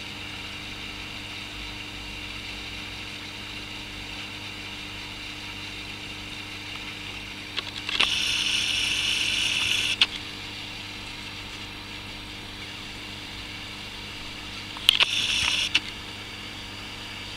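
Camcorder zoom motor whirring twice, for about two seconds around 8 s in and briefly near 15 s in, each time starting and stopping with a click. A steady low hum runs underneath.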